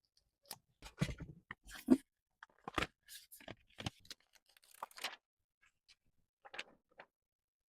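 Irregular small clicks and crackles of plastic and phone parts being handled during a smartphone screen replacement, the loudest about one to two seconds in.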